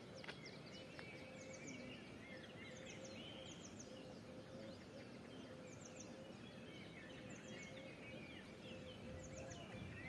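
Small birds chirping repeatedly over faint outdoor background noise, with a faint steady hum underneath.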